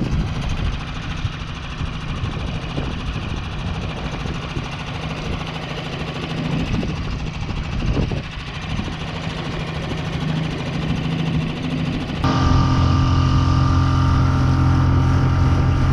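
Boat's outboard motor running steadily under way, then its note jumps louder and stronger about twelve seconds in as the throttle is opened and the boat speeds up.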